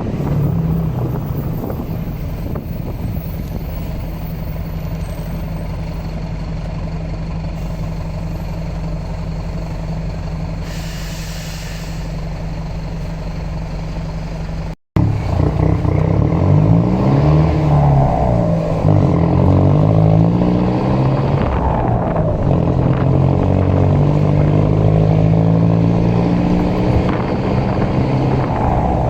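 Mercedes-Benz LO 916 bus's OM924LA four-cylinder turbodiesel running: a steady low engine note for about the first half, then, after a sudden cut, louder with the engine pitch repeatedly rising and falling as it is driven under load.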